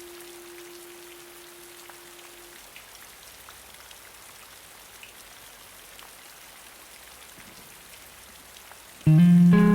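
Steady rain with scattered drop ticks. A held guitar note dies away in the first few seconds, and about nine seconds in a loud guitar chord comes in over the rain.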